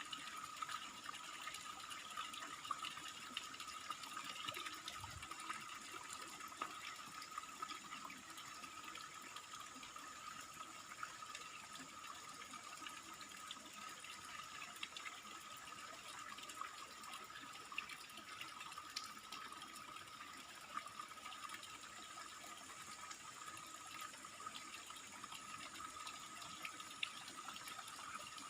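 Faint, steady rush of running water from a waterfall, with a steady high-pitched tone above it.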